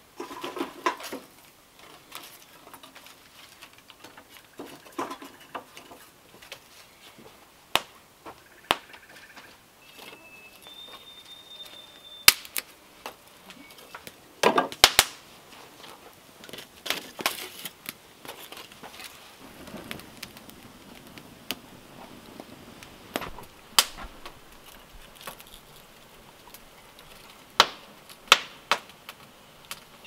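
Split kindling and small firewood knocking and clattering as it is handled and laid into a fire on a stone hearth. Scattered sharp clacks, the loudest cluster about halfway through.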